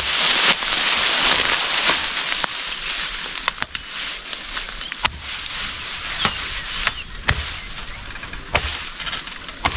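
A cut bamboo culm being handled: dry stems and leaves rustling, loudest in the first two seconds, with about eight sharp cracks spaced irregularly through it.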